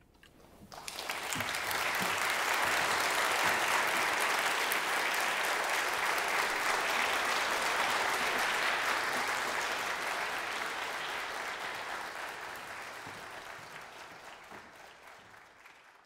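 Audience applauding, building up quickly about a second in and fading away gradually toward the end.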